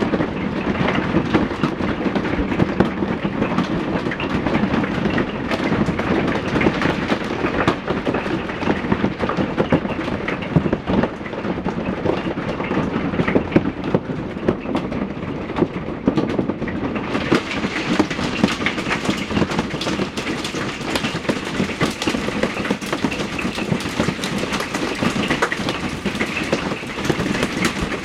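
Hailstones hitting hard surfaces in a dense, continuous clatter of impacts. About 17 seconds in the sound turns brighter and sharper.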